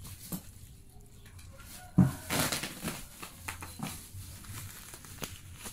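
Bubble-wrap packaging crinkling and rustling as a parcel is handled and opened, with a sharp knock about two seconds in.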